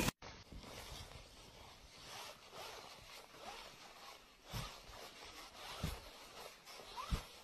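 A sheet of snow sliding off a roof along a roof rake, a faint steady hiss, with three soft thuds in the second half as chunks drop.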